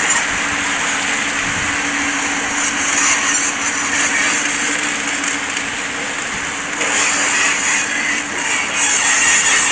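Tracked excavator's diesel engine running steadily, mixed with the constant rush of river rapids.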